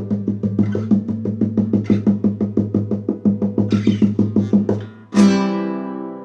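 The end of a plucked-string instrumental: rapid, even picked notes over a held low note, then one final chord struck about five seconds in that rings out and fades.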